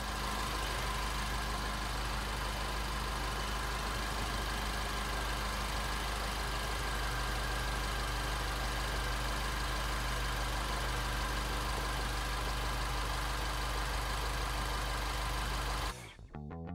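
R56 Mini Cooper S's refurbished 1.6-litre turbocharged four-cylinder engine idling steadily, then cutting off suddenly near the end.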